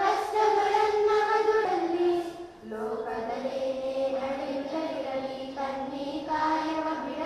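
A small group of children singing in unison into microphones, holding long, steady notes, with a brief pause about two and a half seconds in before the next line.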